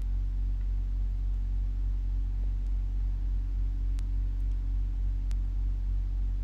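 Steady low hum with a faint hiss, broken by a few faint clicks.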